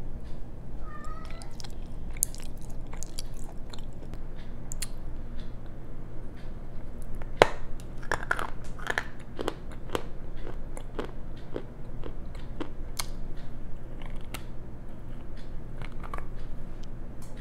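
Edible clay disc being bitten and chewed close to a clip-on microphone: sharp crunches and cracks scattered throughout, the loudest about seven seconds in.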